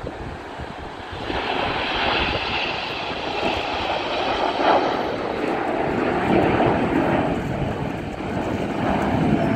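A formation of nine BAE Hawk T1 jets flying past, their Adour turbofan engines giving a broad rushing jet noise that builds about a second in and stays loud, swelling and easing slightly.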